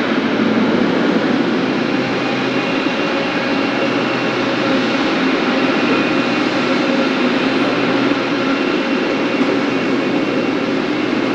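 Boeing 777F's twin GE90 turbofan engines running: a loud, steady jet noise with a faint high whine.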